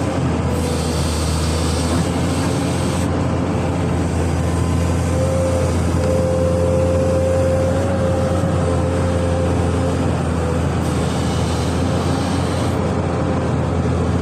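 Amphibious excavator's diesel engine running steadily under load, a deep constant drone with a thin higher whine above it that wavers slightly.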